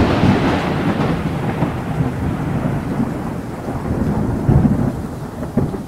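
Thunder rolling over steady rain, fading slowly and swelling again with a further rumble about four and a half seconds in.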